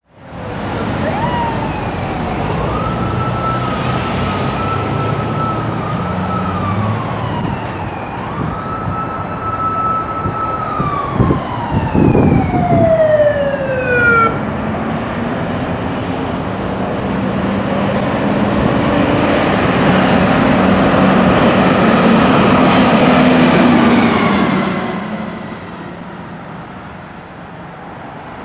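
Fire engine responding: its siren winds up, holds a high wail, and slowly winds down, twice, with a few short loud horn blasts about halfway through. The truck's engine and tyres then swell loudly as it passes and fade as it drives off.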